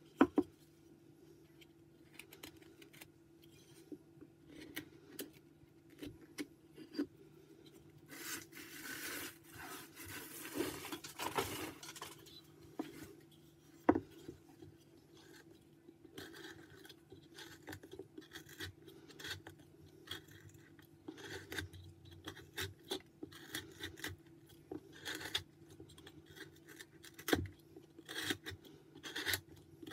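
Carving knife slicing and paring white pine in short, uneven strokes, with a denser run of cuts about a third of the way in. A few sharp knocks stand out, and a faint steady hum runs underneath.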